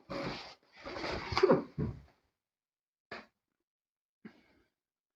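Packaging handled during an unboxing: two spells of sliding and rustling in the first two seconds, then two light knocks, one a bit after three seconds and one a bit after four.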